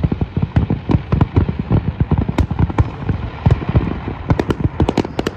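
Aerial fireworks shells bursting in a dense, irregular barrage of loud bangs, several a second, with a low rumble carrying between them.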